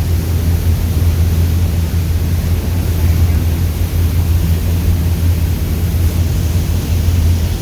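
Tour boat's engine running steadily under way, a constant low drone with a steady hiss over it.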